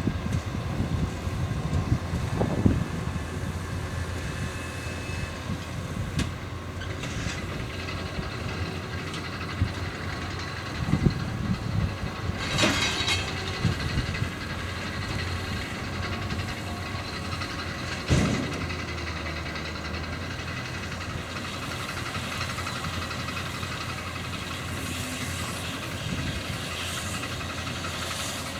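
John Deere 7710 tractor's six-cylinder diesel engine running steadily while driving a round baler-wrapper at work, with a few loud clunks and knocks from the machinery spread through.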